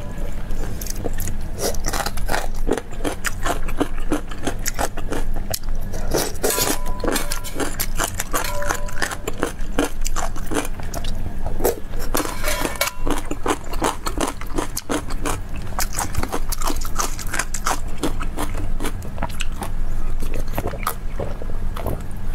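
Close-miked chewing and crunching of food, a dense stream of quick wet mouth clicks.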